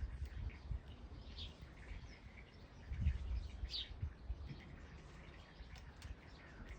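A pet bird giving short high chirps, two clearer ones a couple of seconds apart, over low thumps and rumbling.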